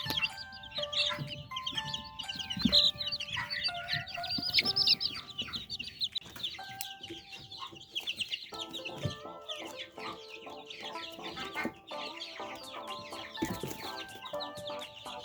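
Chickens clucking amid a constant stream of quick high chirps, over soft background music.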